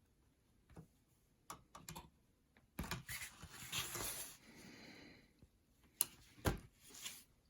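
Light plastic clicks and scraping as a relay on the fuse panel board is squeezed and worked loose, with a rustling stretch about three seconds in and two sharp clicks about six seconds in.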